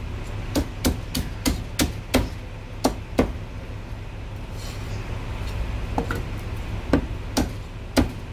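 Chinese cleaver chopping through marinated goose onto a wooden chopping block: a quick run of knocks about three a second, a pause of a couple of seconds, then a few louder single chops, the loudest near the end.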